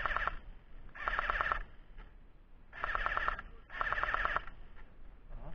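Airsoft gun firing four short full-auto bursts, each a rapid rattle of shots about half a second long, with pauses between.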